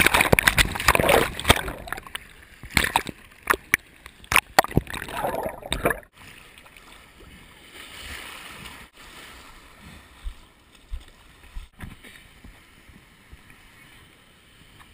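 Surf water splashing and sloshing against a camera held at the water's surface, with many sharp hits of water on the housing, for about the first six seconds. It then drops suddenly to a quieter, muffled wash of surf with a few knocks from the camera being handled.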